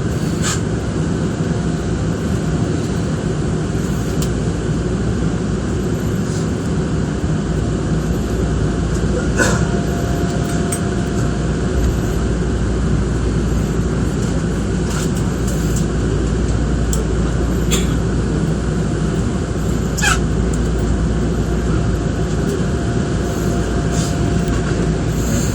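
Nankai Koya Line electric train running, heard from inside the front car: a steady low rumble with a handful of sharp clicks scattered through it.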